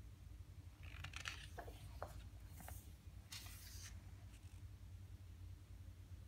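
A page of a thick photo book being turned by hand: brief paper rustles and a few soft flaps and clicks, between about one and four seconds in.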